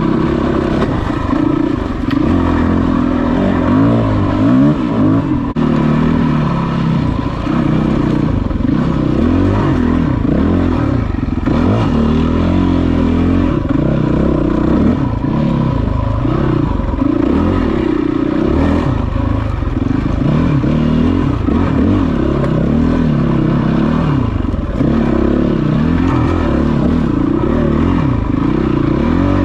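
Yamaha WR450F's 450 cc single-cylinder four-stroke engine being ridden over rough trail, the revs rising and falling every second or two as the throttle is worked, with clatter from the bike over rocks.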